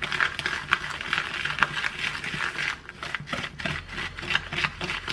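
Small wire whisk beating brown sugar into melted butter in a small plastic bowl: rapid, irregular tapping and scraping of the wires against the bowl.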